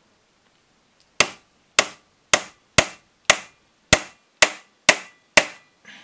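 Small hammer tapping a thin steel pin to drive the shaft out of a Minitrix model train motor's flywheel held in a vise: nine sharp, light metallic taps, about two a second, starting about a second in.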